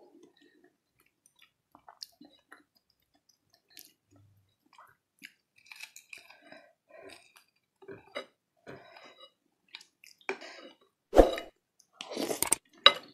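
Close-miked chewing of bakso (beef meatballs) and beef fat: soft, wet mouth sounds and small smacks come in scattered bursts. A short, louder burst comes about eleven seconds in, and a denser burst follows just after twelve seconds as a spoonful goes to the mouth.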